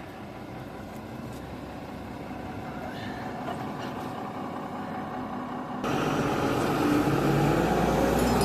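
Tata 200 excavator's diesel engine running, slowly growing louder and then suddenly much louder about six seconds in as the machine is worked to test the bucket. The newly shimmed bucket pins give no knock.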